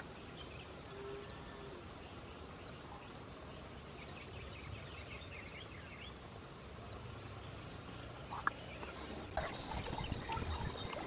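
Faint outdoor ambience with small animal calls, a cluster of short chirps about four to five seconds in. Near the end the background changes abruptly to a louder, hissier ambience with scattered knocks.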